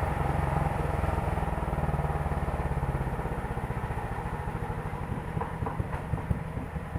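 Engine of a home-built sawmill running, then slowing down, its firing beats spreading out and fading, with a few sharper knocks near the end.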